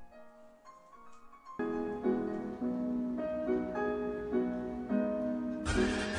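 Background music: soft and sparse at first, then fuller and louder from about a second and a half in, with a brighter, noisier layer joining near the end.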